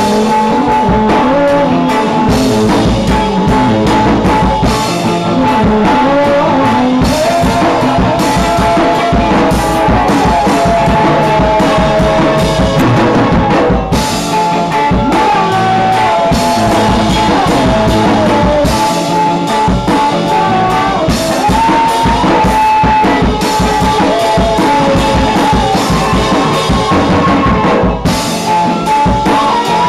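Rock band playing loudly: a drum kit with frequent cymbal hits under amplified guitars carrying sustained melodic lines.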